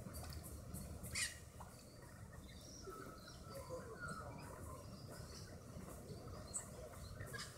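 Small dog wading in shallow lake water, with a short sharp splash about a second in, over a low wind rumble and faint bird chirps.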